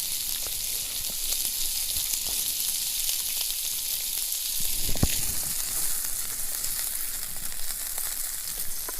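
Food sizzling as it fries in a thin-walled camping frying pan, a steady crackling hiss. A single knock comes about five seconds in.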